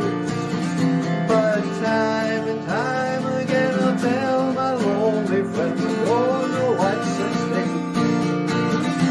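Acoustic guitar strummed steadily in an instrumental passage of a song. A higher melody line bends and wavers over it from about three to seven seconds in.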